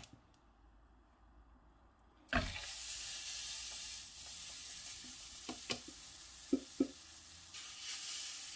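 Pancake batter sizzling in a hot, lightly oiled frying pan, the hiss starting sharply about two seconds in as the batter goes in, then holding steady. A few light clicks of the silicone ladle against the pan near the middle as the batter is spread.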